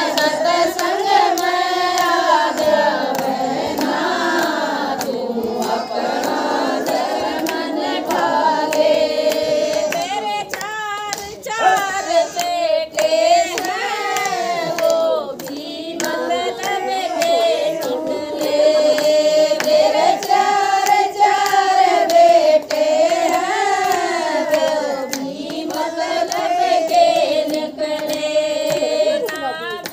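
A group of women sing a Haryanvi devotional bhajan in unison, unaccompanied by instruments. Steady hand-clapping keeps the beat throughout.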